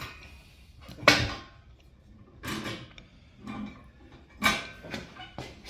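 Tire bead being worked around a beadlock wheel rim: irregular knocks and scrapes of rubber against metal, about once a second, the loudest about a second in and again near four and a half seconds.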